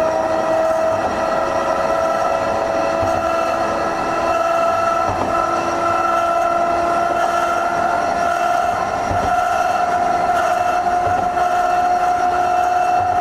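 Hankai Tramway Type 351 tram's nose-suspended traction motors and gears whining, the pitch climbing slowly as the tram gathers speed.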